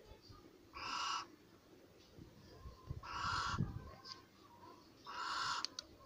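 Barn owl giving three breathy hissing calls, each about half a second long and roughly two seconds apart.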